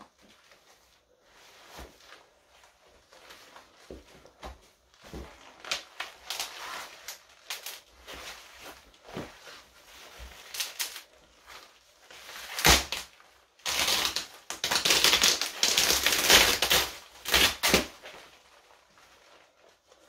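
Shiny black wet-look leggings being torn apart by hand while stood on: scattered crinkles and small snaps, a sharp snap a little past halfway, then several seconds of loud, rapid crackling tearing that dies down to quieter rustling near the end.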